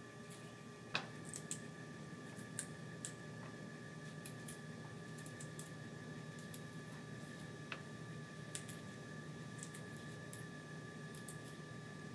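Paring knife carving a raw carrot: scattered faint crisp snicks and clicks, with one sharper click about a second in, over a steady faint hum.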